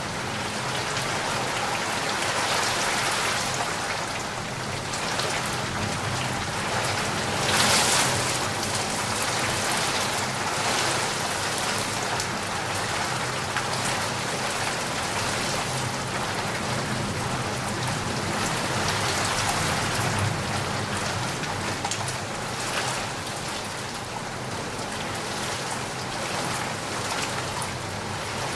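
Steady rain falling, a dense even patter, with a brief louder surge about eight seconds in.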